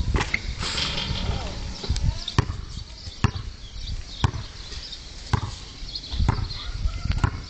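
A basketball bouncing on a concrete court as it is dribbled, a steady run of sharp bounces about one a second.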